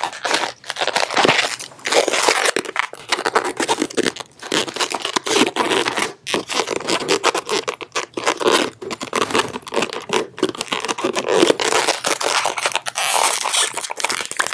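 Latex twisting balloons being twisted and rubbed against each other by hand, giving a continuous, irregular rubbing and squeaking with crackles.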